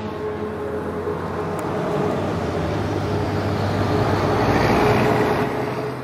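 Highway traffic: a motor vehicle's engine hum and tyre noise, growing steadily louder to a peak about five seconds in.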